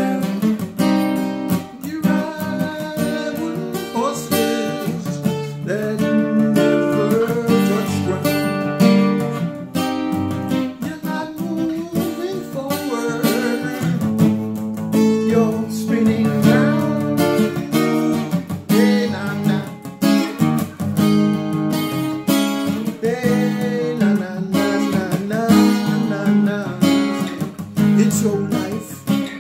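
Acoustic guitar strummed and picked, with a man singing over it at times.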